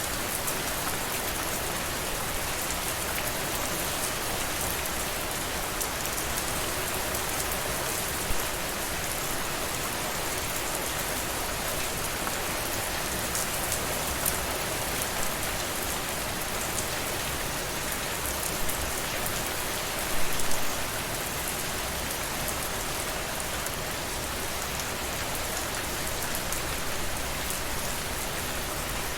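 Steady rain falling on a surface: an even hiss with scattered drop ticks and a few louder drips, a short cluster of them about two-thirds of the way through.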